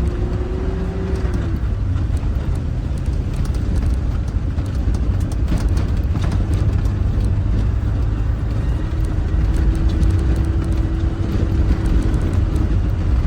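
Land Rover engine running as it drives slowly along a rough off-road track, with a steady low rumble. A steady whine over it dips away about a second and a half in and comes back near the end.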